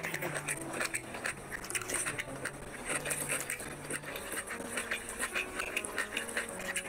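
Wet squelching and clicking of cooked rice being squeezed and mixed by hand into curry gravy on a plate, with chewing and mouth sounds, over soft background music.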